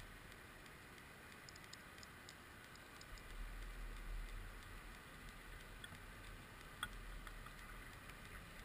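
Faint underwater ambience picked up by a camera lowered to the seabed: scattered sharp clicks over a low rumble, the clicks clustering a couple of seconds in, with one louder click near the end.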